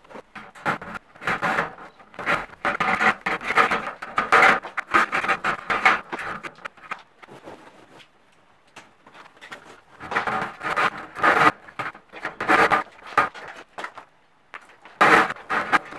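Black flexible plastic conduit being pulled through the openings in metal drywall studs: irregular scraping and rattling strokes, with a quieter pause of a few seconds midway.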